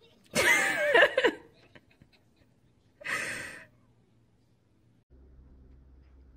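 A person's voice in two outbursts: a high, wavering cry lasting about a second, starting about half a second in, then a short breathy gasp or laugh about three seconds in.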